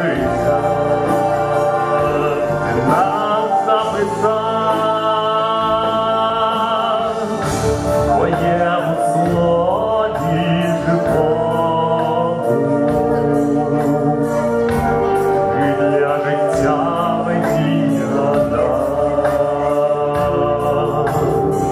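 A man singing a Christian worship song into a handheld microphone, amplified, with long held notes and vibrato over a steady instrumental accompaniment.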